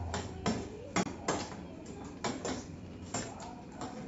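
Steel spoons scraping and clinking against stainless steel plates while scooping ghugni and muri, a handful of sharp, irregular clinks.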